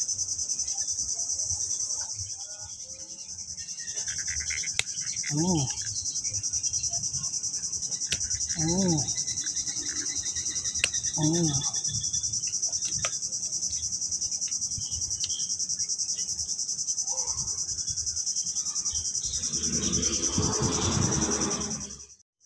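Steady, high-pitched chirring of insects. Three short rising-and-falling calls come about five, nine and eleven seconds in, and a louder noise swells near the end before the sound cuts off suddenly.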